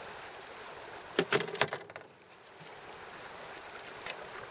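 Steady river and wind noise, broken about a second in by a quick cluster of knocks and clatters from gear being handled in a canoe at the water's edge.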